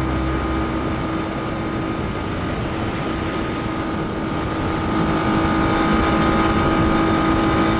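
Small motorboat engine running steadily at a constant speed, with a wash of wind and water noise beneath it.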